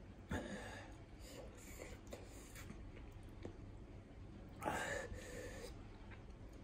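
Faint breathy eating sounds of a man eating spicy miso instant cup noodles with chopsticks: a short one just after the start, and a louder one lasting about a second about four and a half seconds in.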